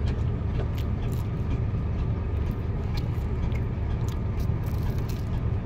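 Boat engine running steadily under way, a low even drone.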